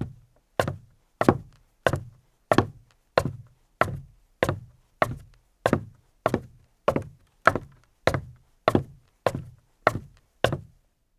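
Footsteps of boots walking on a deck: a slow, even pace of about eighteen steps, roughly one every 0.6 seconds, each a sharp knock with a low thud beneath it, stopping shortly before the end.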